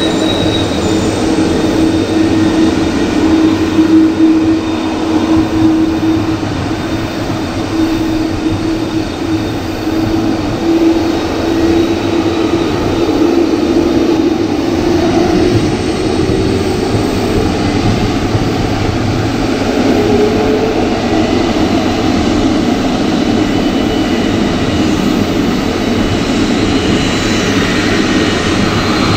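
Jet airliner's engines running as it taxis along the runway after landing: a steady rumble with a held hum that rises slightly about halfway through and then fades.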